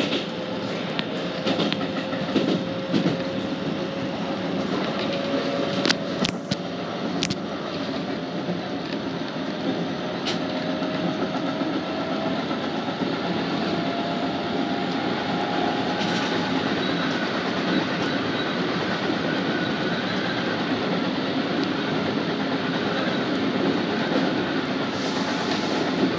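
Keisei Main Line electric train running, heard from inside the front car: a steady rumble of wheels on rail with a faint motor whine that rises slowly in pitch through the first half, and a few sharp clicks about six to seven seconds in.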